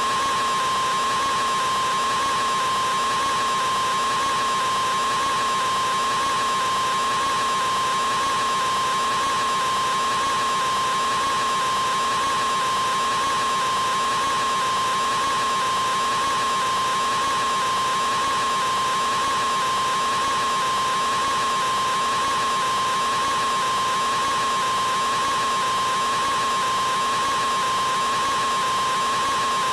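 A man's open-mouthed scream, a loud 'aaaa' stretched into one unbroken, unchanging tone at a fixed high pitch, with no pause for breath.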